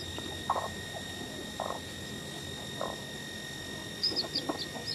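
A broody hen giving short, low croaking growls about once a second as a hand reaches under her, then a newly hatched chick peeping in a few high, falling cheeps near the end.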